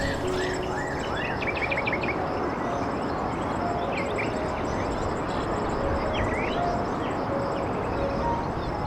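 Small birds chirping and twittering, with short rising and falling calls and a quick run of chirps about a second and a half in, over a steady rushing background noise. Short, soft low tones sound here and there.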